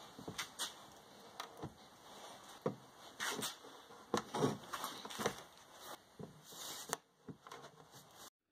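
PVC pipe and fittings being pushed together and set down on a wooden workbench as freshly cemented joints are assembled: a run of irregular hard plastic knocks and scrapes that stops abruptly near the end.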